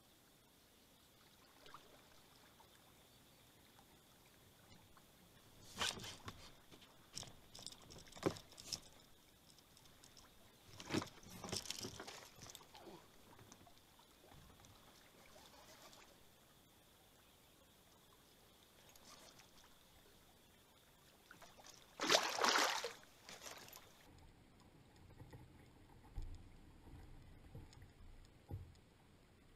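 Quiet, scattered handling noise of fishing tackle and rod in a kayak: short clusters of rustles, clicks and knocks, the loudest about two-thirds of the way through, over a faint steady high tone. Near the end, after that tone stops, a few low thumps.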